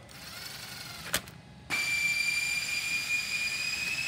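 Bosch 12-volt cordless driver spinning cover bolts into a Kawasaki engine case, running them in without tightening them much. A short, fainter motor run ends in a click about a second in. Then a longer, louder high-pitched motor whine starts, rising slightly in pitch.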